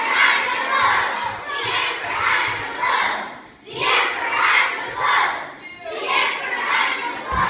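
A group of children shouting together in loud swells about once a second, with a short break about three and a half seconds in.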